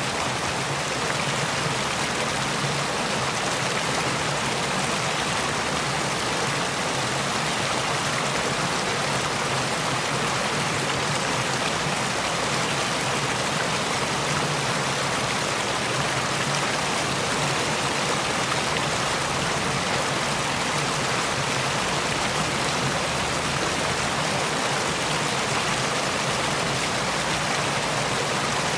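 Water of a stream running over a small fall: a steady, even rushing noise with no breaks.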